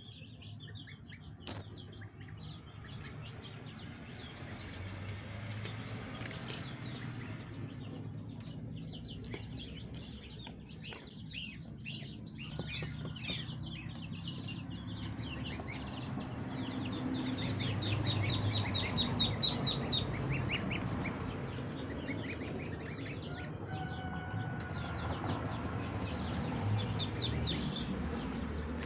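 Goslings and ducklings peeping: many rapid, overlapping high chirps, busiest in the middle and again near the end, over a low rumble.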